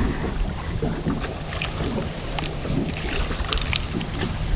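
Wind buffeting the microphone on a small fishing boat, over a steady low hum, with scattered light clicks and taps.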